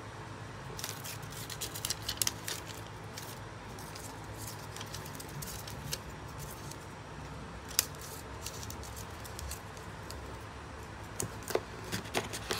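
Small white plastic power adapter being handled and set into a cardboard box tray: scattered light clicks and taps, a cluster in the first few seconds, one sharper click about eight seconds in and a few more near the end, over a steady low hum.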